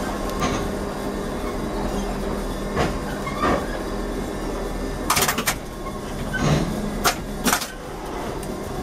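Cab interior of a 1988 ZiU-682V trolleybus moving slowly, with a steady low hum. A series of sharp clacks and rattles comes through it, several close together about five seconds in.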